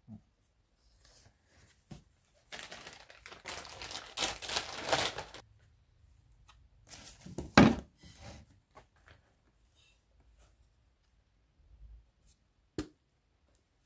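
Plastic speedometer housing of a Honda Scoopy i being handled and worked apart, with about three seconds of scraping and rustling, then a loud knock a little past the middle and a sharp click near the end.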